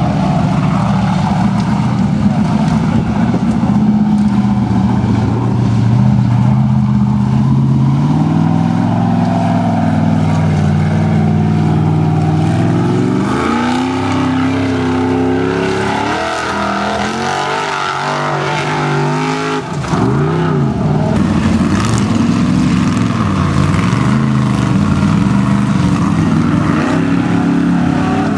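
Formula offroad buggy engine running hard, its pitch climbing and dropping as the throttle is worked. After a brief break about two-thirds of the way through, it revs up and down repeatedly in quick swings.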